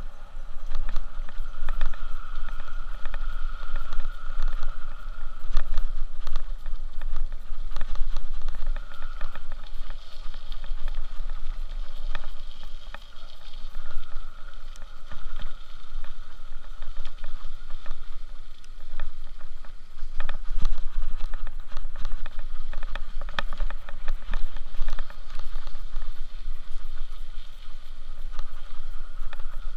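Riding a bicycle with wind buffeting the microphone in a steady heavy rumble, with many small rattling clicks throughout.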